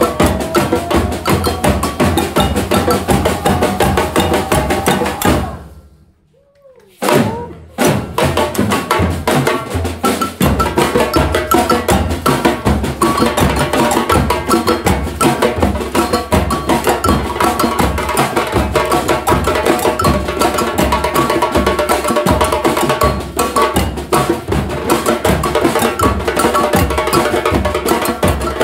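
A batucada samba percussion ensemble of surdo bass drums, snare drums and other drums playing a dense, driving rhythm. About six seconds in the whole group stops for a moment, then comes back in together.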